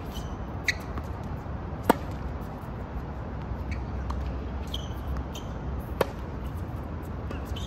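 Tennis rally on a hard court: a sharp racket-on-ball hit about two seconds in and a forehand about six seconds in, with fainter hits and bounces from the far end of the court. A few short high squeaks and a steady low background rumble run underneath.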